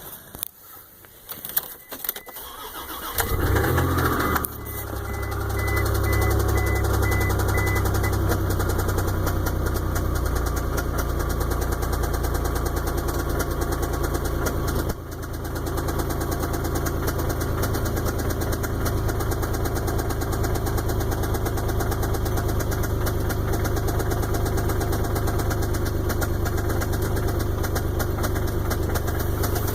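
A few clicks, then a 1999 Isuzu engine cranks and starts about three seconds in and settles into a steady idle with a knock, which the owner puts down to shot main or rod bearings. The engine sound dips briefly about halfway through.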